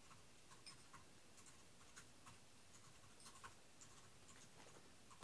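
Near silence: quiet room tone with faint, irregular small ticks and taps scattered throughout.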